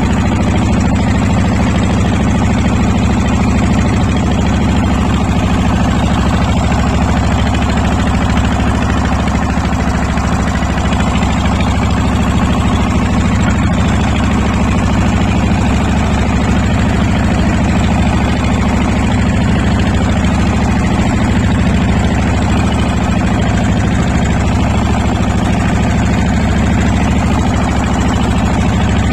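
A river boat's engine running steadily at an unchanging speed, a loud low drone.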